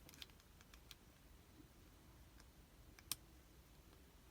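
Near silence with a few faint clicks of the lock and tools being handled, and one sharper click about three seconds in.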